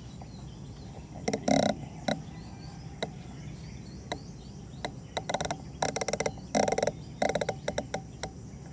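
Air rifle scope turret being dialled: single sharp clicks and quick runs of rapid clicks, heaviest in the second half, as the elevation is set for a 100-yard shot.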